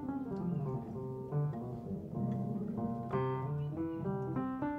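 Instrumental background music with plucked guitar notes over a low bass line.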